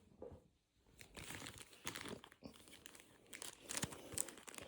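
Foil wrapper of a Pokémon card booster pack crinkling as it is handled and opened: faint crackling that starts about a second in and grows louder near the end.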